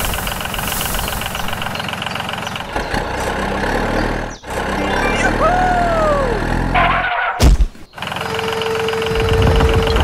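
Truck engine sound running steadily, with a tone that rises and then falls around the middle, a sudden sharp knock about seven and a half seconds in, and a steady hum near the end.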